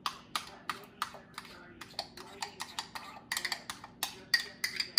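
A spoon scraping and tapping against a small ceramic bowl while scooping out mayonnaise: a string of short clicks and knocks, a few a second, coming faster and with a light clinking ring in the second half.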